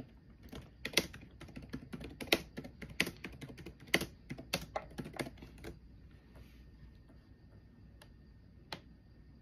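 Typing on a computer keyboard: a quick, uneven run of key clicks for about the first five and a half seconds, then two single key presses near the end.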